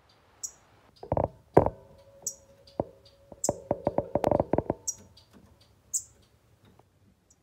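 Cuban grassquits (Cuba finches) giving short, high, thin call notes over and over, about once a second. From about one second in to about five seconds in there is a louder run of lower clicks and knocks.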